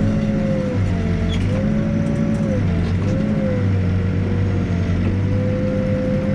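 Backhoe's diesel engine running steadily under hydraulic work, its note dipping briefly and recovering about four times as load comes and goes while the machine is repositioned.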